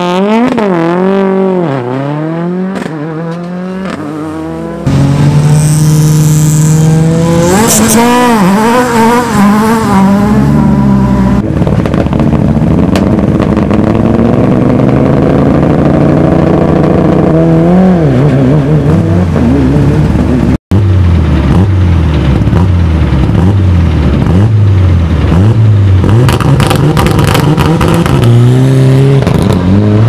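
Rally car engines revving hard on a start line and accelerating away, one car after another. The engine pitch bounces up and down while the revs are held, then sweeps upward on each launch. Near the end a Mitsubishi Lancer Evolution's turbocharged four-cylinder is held at high revs on the line.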